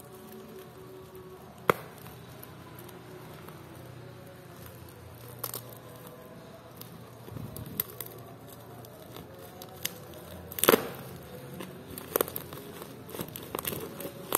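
Shipping package being handled and opened: scattered crinkling and crackling of plastic packaging with a few sharp knocks, the loudest about ten seconds in.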